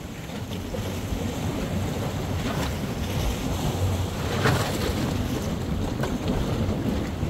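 Steady rushing noise with a heavy low rumble, wind buffeting the microphone over moving water, with a couple of brief splashy surges about two and a half and four and a half seconds in.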